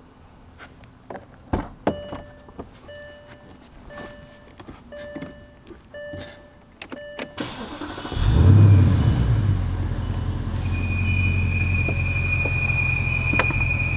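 Warning chimes from a 2014 Bentley Continental GTC repeat about once a second, then its twin-turbo 4.0-litre V8 cranks and starts with a brief flare about eight seconds in and settles to a steady idle. A couple of seconds into the idle a steady, high-pitched whistle sets in, which the mechanic thinks is very likely a vacuum issue.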